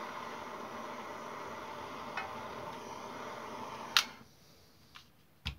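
Small handheld gas torch hissing steadily as it heats the tabs for soft soldering, then shut off with a sharp click about four seconds in. A few light knocks follow as the torch is set down; the heaviest is near the end.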